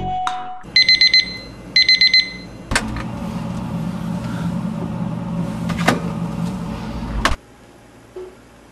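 Digital alarm beeping in two bursts of four quick high beeps, about a second apart, signalling that a timed wait is up. Then a click and a steady hum for about four and a half seconds, with a click in the middle, cutting off sharply near the end.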